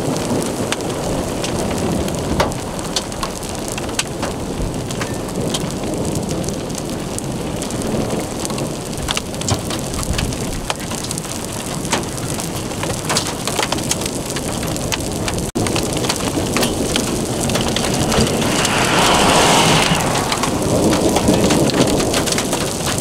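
Hail and rain falling on an asphalt road and the grass beside it: a steady hiss of rain with many small, sharp ticks of hailstones striking. The rain grows louder for a few seconds near the end.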